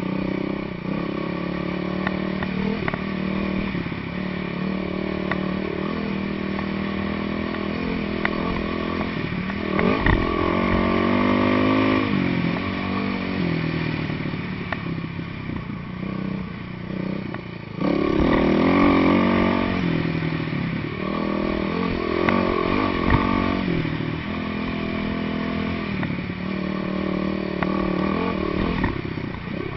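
Dirt bike's single engine running under way on a sandy trail, the throttle opening and closing with the terrain. The revs climb about a third of the way in, drop off, then come back sharply louder a little past the middle.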